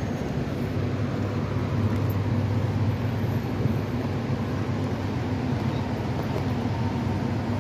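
A steady low rumble with a faint hum running through it.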